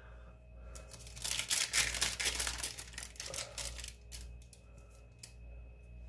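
Parchment paper crinkling and rustling as a baked hand pie is handled and picked up, busiest from about one to three seconds in, followed by a few light clicks and taps.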